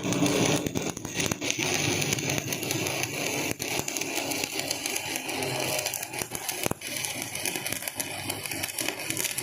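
Electric arc welding on a pulley: a dense, steady crackling and sputtering of the arc, full of fine rapid clicks.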